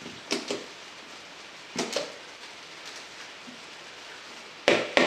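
Plastic bottle of barbecue sauce shaken and squeezed upside down over a plastic bowl: short spluttering squirts in pairs, then a quicker, louder run of them near the end as the last of the sauce is forced out.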